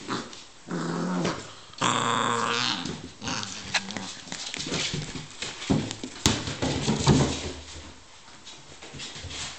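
Beagle puppy growling in bursts while tugging at a toy soccer ball, loudest about two seconds in, followed by a few sharp knocks and scuffles around the middle.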